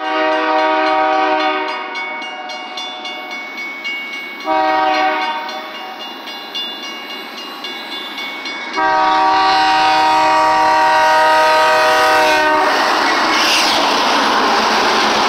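Freight locomotive air horn (the lead BNSF C44-9W) sounding the grade-crossing signal: the tail of a long blast, a short blast, then a final long blast held as the engine reaches the crossing. A crossing bell rings steadily between blasts. Near the end the horn stops and the locomotive passes close by with a loud rush of engine and wheel noise.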